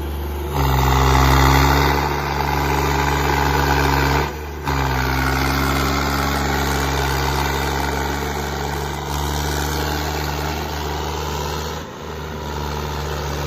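Tractor diesel engine running hard at steady high revs. It gets louder about half a second in, breaks off for a moment about four seconds in, and dips again briefly near the end.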